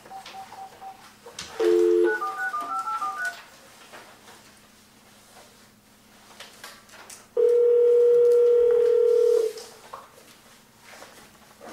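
A telephone call being placed. A short burst of dial tone, then a quick run of touch-tone keypad beeps as the number is keyed in. About five seconds later comes one ringback tone of about two seconds.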